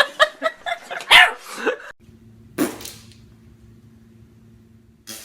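A dog barking several times in quick, short barks during the first two seconds. Then comes a single short noise, over a low steady hum.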